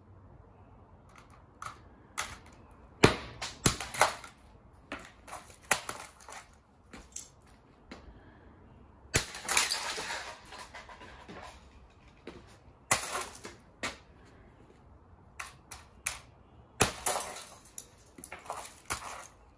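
Consumer electronics being smashed: irregular sharp blows and cracks on plastic and metal casing, with a couple of longer crashing rattles of breaking parts.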